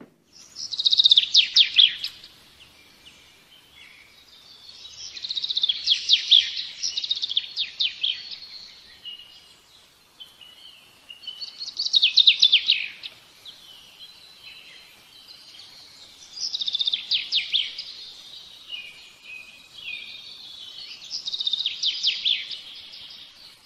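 Bird song: five bursts of rapid, high chirping trills, one about every five seconds.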